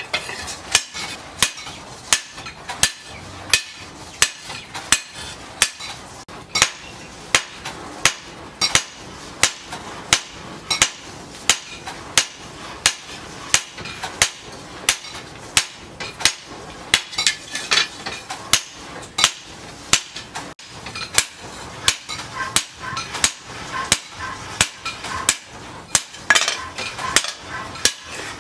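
Hammer blows on a red-hot steel knife blade, cut from a tractor disc-plough disc, laid on a steel post anvil: a steady rhythm of about two strikes a second, each with a short metallic ring.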